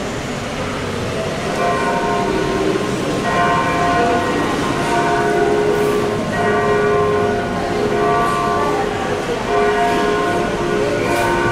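Slow music of long held notes that change pitch every second or two, over a steady background hiss.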